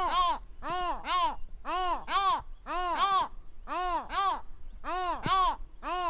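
Pacific gull calling: a steady run of double calls, each note rising and falling in pitch, about one pair a second.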